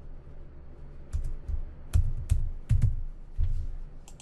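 Typing on a computer keyboard: about seven or eight uneven keystrokes, each a sharp click with a dull thud, starting about a second in.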